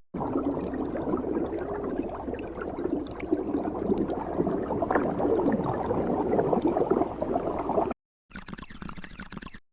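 Water bubbling and gurgling, with many small bubbles popping and blooping over each other. It cuts off suddenly about eight seconds in, and a short, brighter stretch of bubbling follows and also stops abruptly.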